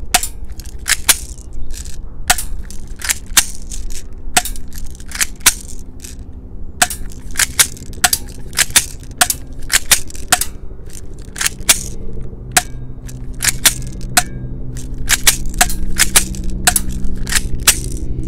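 Toystar Colt M1911A1 airsoft BB pistol being fired and cycled over and over: sharp plastic snaps at uneven spacing, about one or two a second.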